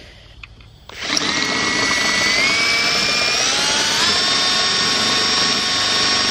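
Power drill starts about a second in and spins the shaft of an old generator, its motor whine stepping up in pitch twice as it speeds up.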